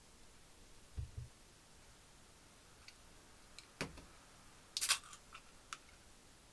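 Two soft low bumps about a second in, then a handful of light, sharp clicks and taps, the sharpest about two-thirds of the way through.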